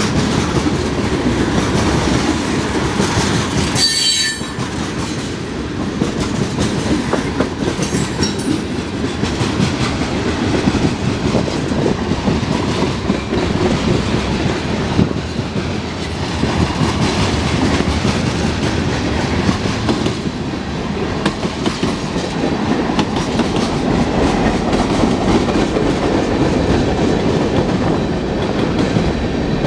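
Freight cars (covered hoppers and tank cars) rolling past, with the steady noise of steel wheels on rail and a running clickety-clack over the rail joints. A brief high-pitched wheel squeal sounds about four seconds in, and a fainter one around eight seconds.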